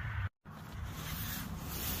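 Wind buffeting the microphone, with the rustle of hands and clothing handling a small revolver; the sound drops out for a moment just after the start, and the rustle grows brighter near the end.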